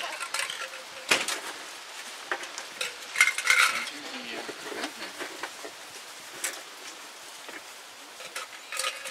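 Scattered clinks, taps and rustles of tableware and food packaging being handled, with a few sharper clacks about a second in, around three and a half seconds in, and about six and a half seconds in.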